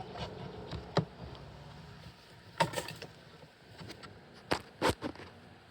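Handling noises from working 12-gauge copper wire through a homemade screw-blade stripping jig. There are several sharp clicks and knocks: one about a second in, a few near three seconds, and two close together near the end, over a faint low hum.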